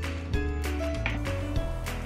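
Background music: a track with sustained bass notes, a changing melody line and percussion hits.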